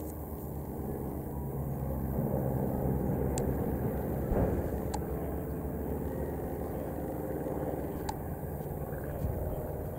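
Piston engines of vintage biplanes droning as they fly a display pass, swelling two to four seconds in. A single dull bang from a pyrotechnic charge comes about four seconds in, and a few sharp distant cracks come later.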